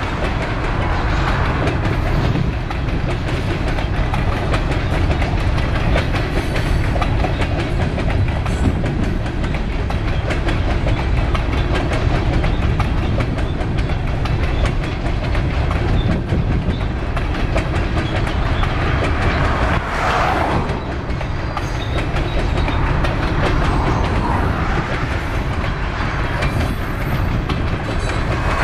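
Steady rumble and clickety-clack of a long potash train's covered hopper cars rolling past, the wheels clicking continuously.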